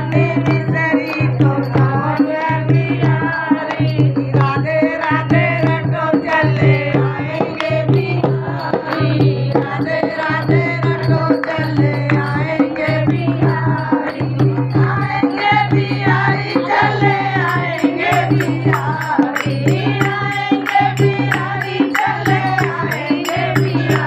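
Group of women singing a Hindi devotional bhajan in unison to a steady dholak drum beat. Small hand cymbals tick in time, more clearly in the last third.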